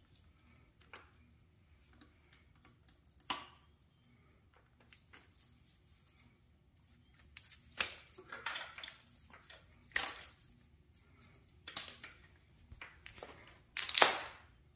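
Plastic electrical connectors being unclipped and a wiring harness handled on a Ford 5.0L Coyote V8, a scatter of sharp clicks and rattles, busier in the second half, with a louder knock near the end.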